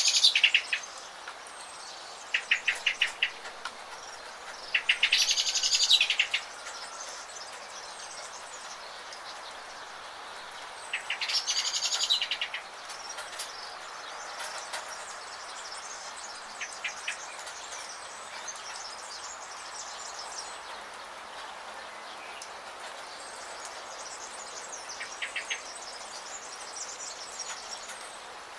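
Songbirds chirping and trilling in short bursts over a steady hiss of rain. The loudest bursts come right at the start and at about five and twelve seconds in, with fainter trills later.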